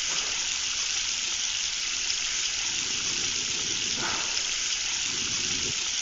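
Water running steadily from a bathroom faucet, an even hiss: a faucet that will not shut off. About four seconds in, a brief rustle.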